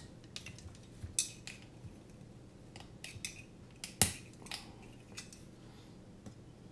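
Small clicks and knocks of a carbon-fibre drone frame and a hex screwdriver being handled and fastened, with one sharp knock about four seconds in.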